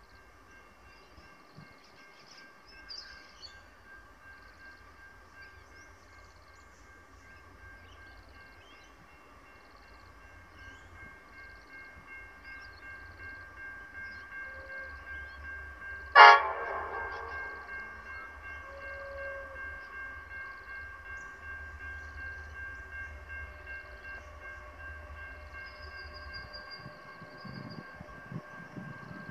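Diesel-hauled freight train approaching, its locomotive rumble slowly growing louder. About halfway through, one short, loud horn blast rings out.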